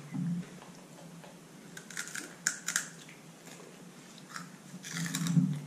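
A crunchy puffed peanut snack being chewed: a few crisp crunches about two to three seconds in, and more near the end.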